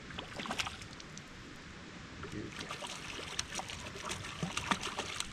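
Stream water with irregular small splashes and ticks, as a freshly hooked trout is played at the surface.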